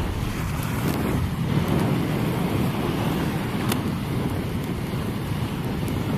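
Steady rushing of SEBA Luminous 110mm inline skate wheels rolling over asphalt while skating, mixed with wind on the microphone, with a sharp click a little past the middle.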